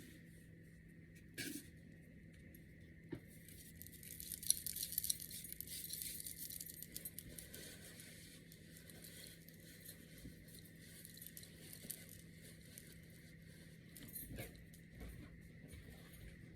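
Vegetable oil crackling and sizzling as catfish fillets fry. The crackle swells a few seconds in and then settles to a lighter sizzle, with a few soft knocks.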